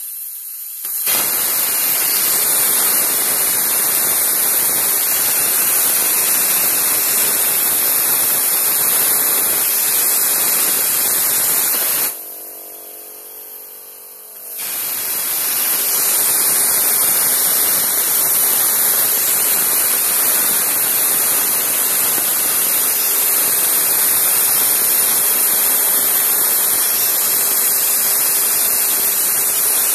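Plasma cutter arc hissing loudly and steadily as the torch cuts 4 mm stainless steel plate. About twelve seconds in the hiss cuts out for about two seconds, with the arc out, then comes back at full strength.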